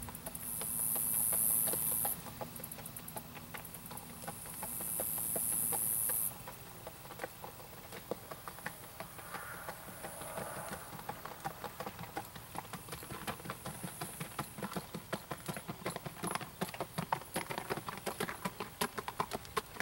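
Missouri Fox Trotter gelding's hooves striking a gravel and dirt track under saddle: a steady run of hoofbeats that grows louder and quicker over the last several seconds as the horse fox-trots past. A high hiss comes and goes twice in the first few seconds.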